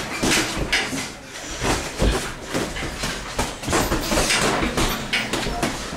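Boxing sparring in a ring: an irregular run of glove thuds and slaps and scuffing footwork, with a few heavier thuds.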